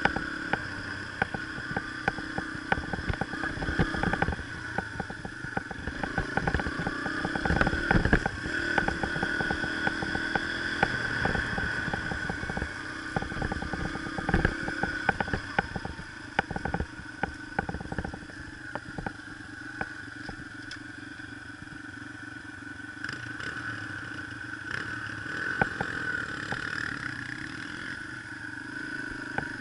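Yamaha TT-R125 dirt bike's single-cylinder four-stroke engine running at steady trail speed, heard from the rider's helmet, with many short knocks and rattles from riding over rough ground. It gets somewhat quieter a little past halfway.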